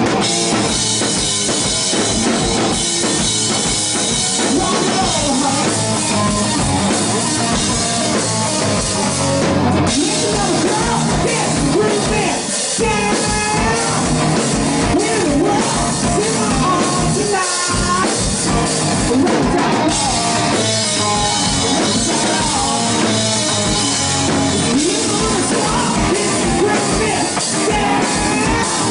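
Hard rock band playing live at full volume: drum kit, bass guitar, and electric guitar through Marshall amplifier stacks, with a singer's voice.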